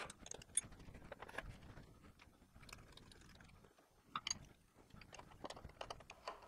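Faint, scattered metal clicks and small scrapes of a tool being changed by hand in a milling machine's drill chuck, a pipe tap going in after the countersink.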